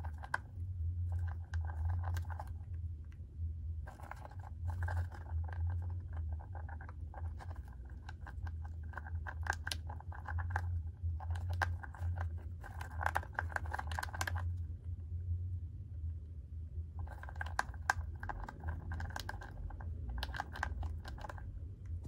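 Dwarf hamster crunching dry compound food pellets: quick runs of small, crisp crunches in spells of a few seconds, broken by short pauses, the longest about two-thirds of the way through. A low steady hum sits underneath.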